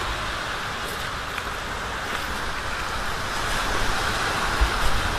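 Sea waves washing on a beach, a steady hiss of surf, with wind buffeting the microphone in low gusty rumbles.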